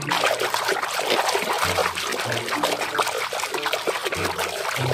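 Water splashing and sloshing as a hand swishes rapidly back and forth through a tub of water, scrubbing a small plastic toy under the surface: a continuous run of quick small splashes.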